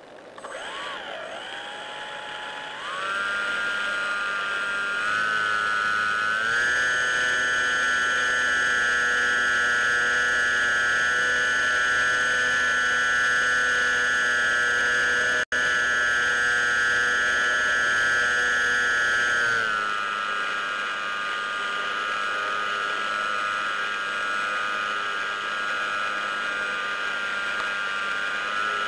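Electric motor and propeller of a model airplane whining steadily in flight. The pitch steps up about 3 and 6 seconds in as the motor speeds up, then falls back a little past the middle. The sound cuts out for an instant about halfway through.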